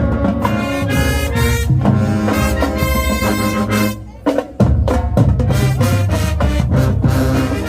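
High school marching band playing, with brass and drums. The band cuts off sharply about four seconds in for half a second, then comes back in at full volume.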